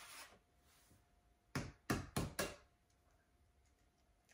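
An egg tapped four times in quick succession against the rim of a glass measuring bowl to crack it open.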